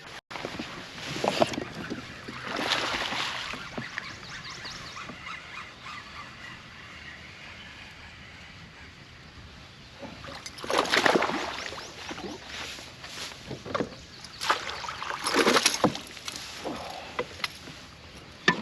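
Water splashing and sloshing around a kayak in irregular bursts, loudest about ten seconds in and again around fifteen seconds in.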